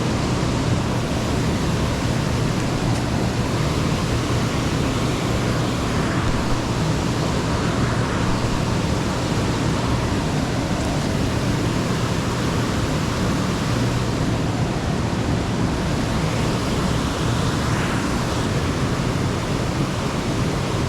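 Steady rush of flowing water below a dam, an even noise with a low steady hum underneath.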